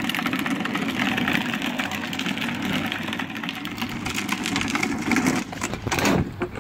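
Hard plastic wheels of a Green Machine drift trike rumbling and grinding over rough asphalt, with a louder scraping burst about six seconds in as it spins out sideways.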